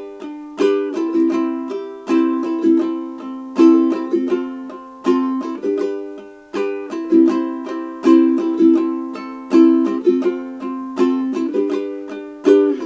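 Ukulele strumming chords in a steady rhythm, an instrumental passage with no singing.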